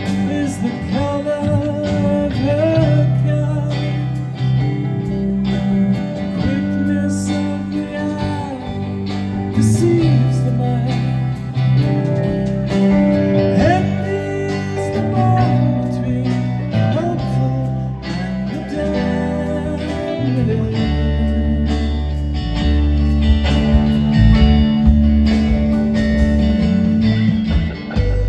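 Guitar-led rock music played live: lead guitar notes bending and sustaining over a bass line and a steady beat.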